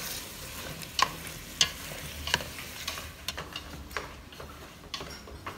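Bamboo chopsticks stirring chunks of snake meat in an aluminium pot, clicking sharply against the pot about once a second, over a faint sizzle as the meat is lightly stir-fried to firm it up.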